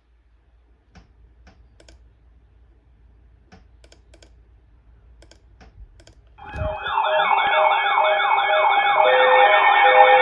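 Faint computer keyboard clicks. About six seconds in, loud electronic siren-like tones start: a fast warbling sweep layered over steady tones and a beeping pulse, getting louder toward the end.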